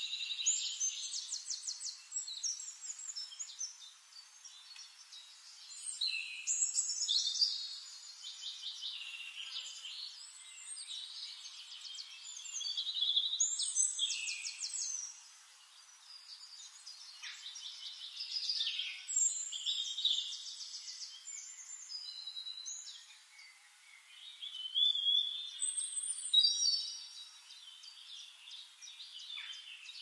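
Splendid fairywren song: rapid, high reeling trills in bursts of two to three seconds, repeated about every five or six seconds.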